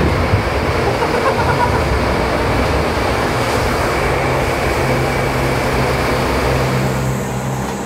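Cleanroom air shower running: jets of air blowing from the wall nozzles, a loud, steady rush with a faint low hum under it, easing slightly near the end.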